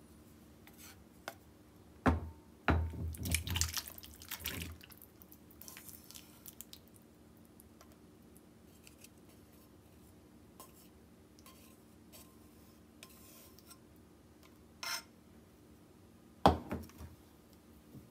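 Ramen noodles and soup poured from a pot into a ceramic bowl: a knock of the pot on the bowl about two seconds in, then a couple of seconds of splashing. Small clicks of chopsticks follow, and a sharp knock on the bowl near the end.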